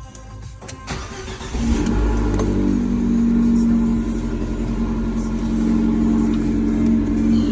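Abarth car engine starting about a second and a half in, after a few clicks, then running steadily.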